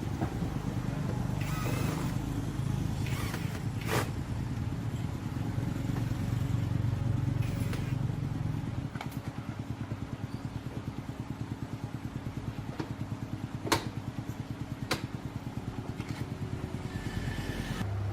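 A motor running with a steady low hum and a fast, even pulsing, broken by a few sharp clicks.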